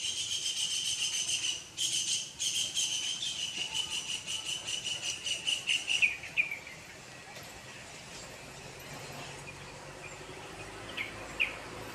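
A bird calls in a high, rapid trill for about six seconds; the trill falls in pitch and trails off. Two short chirps come near the end.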